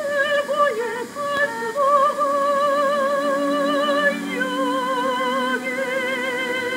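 Korean art song (gagok) sung in classical style: a high voice holding long notes with a wide vibrato, moving between a few sustained pitches.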